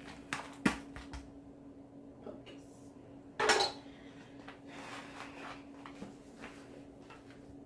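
A utensil clinking against disposable aluminium foil pans of macaroni and cheese: two sharp clicks near the start and one louder clatter about three and a half seconds in, with a few light ticks after. A steady low hum runs underneath.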